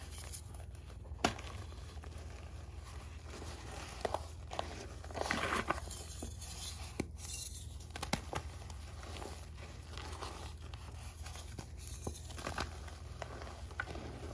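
Hands crumbling powdery reformed chalk and squeezing crunchy clumps of baking soda: soft crunching and crackling with a few sharp snaps, over a steady low hum.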